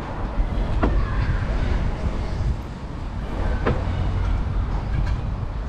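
Low, steady rumble of wind on the microphone and road noise from a bicycle being ridden, with two brief sharp clicks, about a second in and again just under four seconds in.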